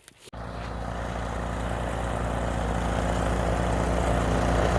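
An engine running steadily, starting suddenly just after the beginning and growing gradually louder.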